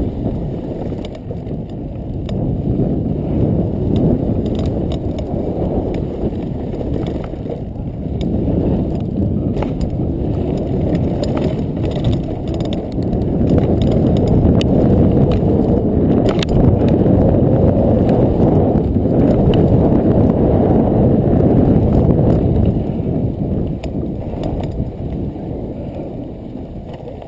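Mountain bike descending a gravel trail at speed, with wind rushing over the action camera's microphone, tyres rolling on loose gravel and the frame rattling over rough ground. The sound is loudest in the middle of the run and eases off near the end as the bike slows.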